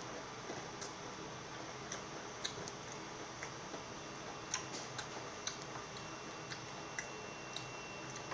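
Quiet eating of fried chicken: soft, scattered mouth clicks and smacks from chewing, over a steady low hiss.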